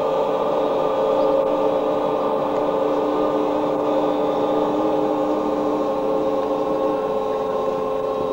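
A steady drone of several held tones at once, without words; one of the lower tones drops out about seven seconds in.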